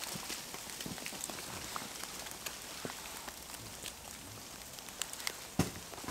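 Small campfire of damp kindling crackling and hissing as it struggles to catch, with scattered small snaps and one louder snap near the end.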